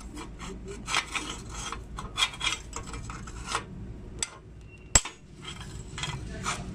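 Short, irregular scraping and rubbing strokes from hand work on a metal bicycle frame, several a second, with one sharp metallic click about five seconds in.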